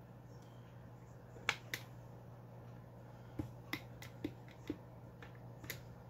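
Joystick fire button being pressed over and over: about eight short, sharp clicks at uneven intervals.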